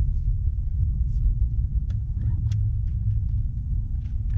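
A steady low rumble with a few faint sharp clicks and taps over it.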